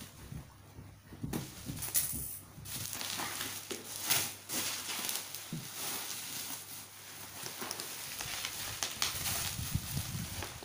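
Bubble wrap and clear plastic wrapping crinkling and rustling as it is handled and pulled around a cardboard box, with irregular sharp crackles.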